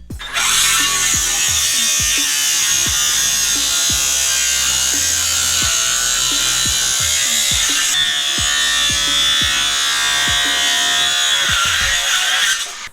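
FLEX 24V brushless 6-1/2-in. in-line circular saw running under load through wood with a badly dulled carbide blade. It makes a steady, high whine for about twelve seconds and stops just before the end.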